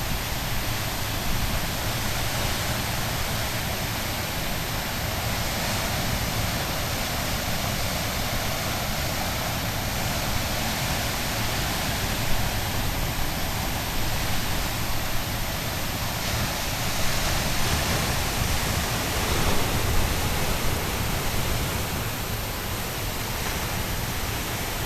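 Steady rushing of ocean surf, with wind rumbling on the microphone.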